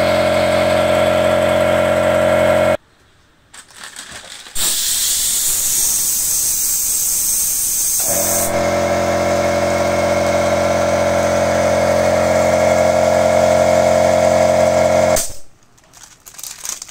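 Ryu RCP-75 electric air compressor motor running with a steady hum, then cutting off about three seconds in. About a second and a half later, the air blow gun on the coiled hose lets out a loud hiss of compressed air for about four seconds. The compressor motor starts again while the air is still being let out, and it runs until it stops shortly before the end.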